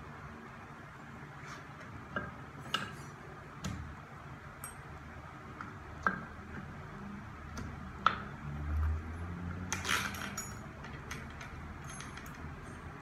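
Small metal parts clinking and tapping against a Mercedes-Benz 722.6 transmission valve body as it is assembled by hand: scattered sharp clinks, the sharpest about six and eight seconds in. A short low rumble comes just after eight seconds.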